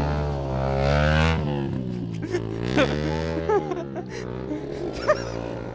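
Motorcycle engines running with a low, steady hum, with a few short shouted voice fragments over it.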